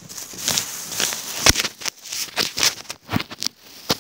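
Plastic bag crinkling and rustling as hands pull at its knot to open it: a run of irregular crackles, the sharpest about a second and a half in.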